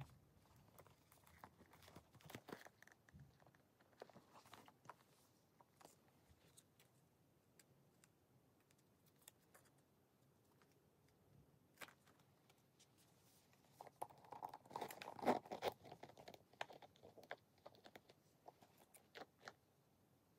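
Faint handling of a Coach Tate 18 leather crossbody bag and its paper hang tag: soft rustles, light taps and small clicks of the bag's hardware, growing busier for a couple of seconds about two-thirds of the way through.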